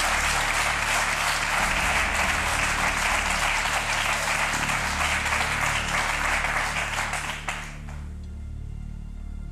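Studio audience applauding steadily over background music; the applause stops about eight seconds in, leaving the music.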